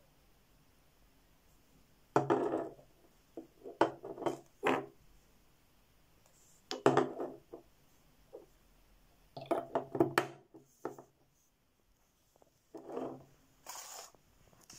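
A glass perfume bottle and its cap being handled on a countertop: irregular clusters of short knocks, clinks and scrapes with quiet gaps between.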